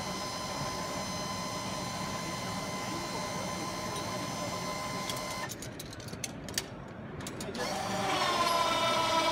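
A steady mechanical whine made of several even tones cuts off abruptly about five and a half seconds in. A few light clicks follow, then another whine starts near the end, dipping slightly in pitch before holding steady.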